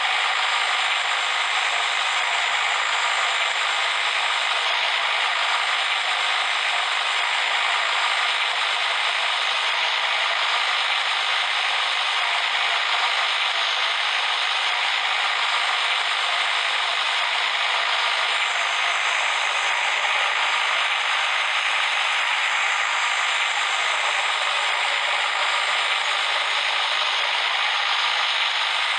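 Road construction machinery running with a steady, dense mechanical rattle and clatter, even throughout and thin, with almost no deep rumble.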